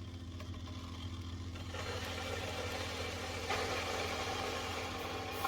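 A Ulalov 1 L stainless-steel gooseneck electric kettle heating water short of the boil: a hissing rumble as the water gets very hot, which sounds like boiling but is not yet. It swells about two seconds in and again about halfway through.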